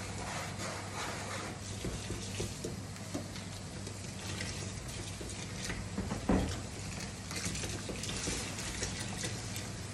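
Dishes being washed at a kitchen sink with water, light clinks and a louder knock about six seconds in, over a steady low hum.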